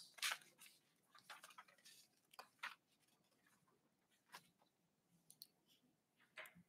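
Near silence: meeting-room tone with a handful of faint, brief clicks and rustles from papers being handled.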